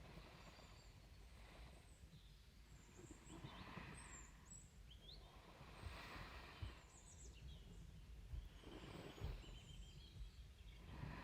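Quiet, slow breathing close to the microphone, each breath a soft rush of air that swells and fades every two to three seconds.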